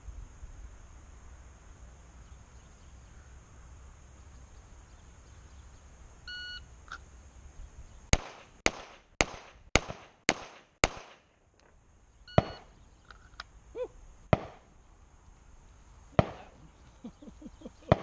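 A shot-timer start beep, then six quick pistol shots about half a second apart from a Stoeger handgun. A second beep follows, then single shots every couple of seconds.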